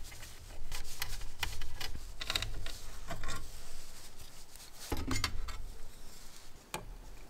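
Allen key working small bolts out of the printer's sheet-metal motherboard cover: scattered light metallic clicks and scraping. A little before five seconds in there is a louder knock as the metal cover plate comes free.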